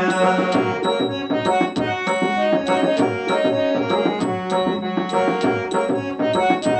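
Harmonium playing an instrumental interlude of a devotional song, held reedy notes over a steady percussion beat, with no singing.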